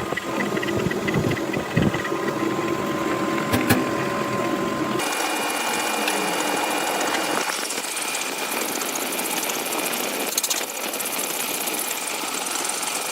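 Metal lathe running while cutting a worm thread, with a machine hum and scattered clicks. The sound changes abruptly about five seconds in to a smoother cutting noise with a thin steady high tone.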